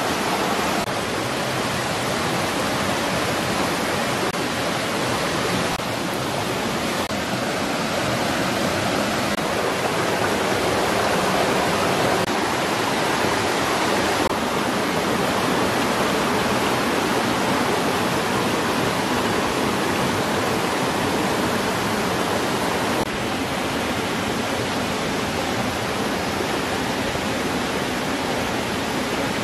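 Fast-running stream water rushing steadily over rocks, a loud even rush with a few small jumps in level.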